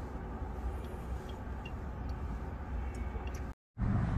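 Thin stream of hot water from a gooseneck kettle pouring onto coffee grounds in a paper filter dripper, over a steady low outdoor rumble. The sound cuts out briefly near the end.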